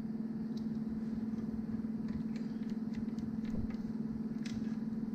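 A steady low hum throughout, with a few faint, scattered clicks and taps as the shift cable of a Hudson single-lever transmission is worked back and forth by hand to move the shift shaft.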